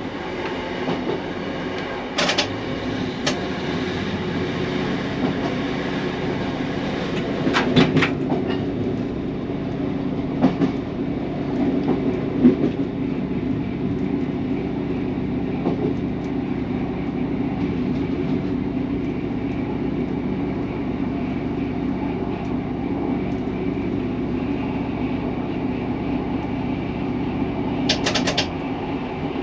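Class 150 diesel multiple unit heard from the cab, its underfloor diesel engine running with a steady drone while the train rolls along. Wheels clack sharply over rail joints and points a few times, in a double click about 8 seconds in and again near the end.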